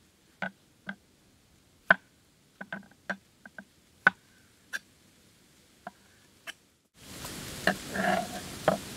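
About a dozen sharp clicks and knocks, spaced irregularly. About seven seconds in, the sound cuts to a louder steady hiss with more clicks.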